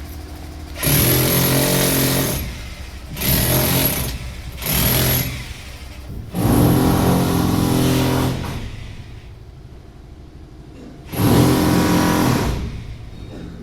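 A power tool run in five short bursts of about one to two seconds each, with a longer pause of about three seconds before the last burst.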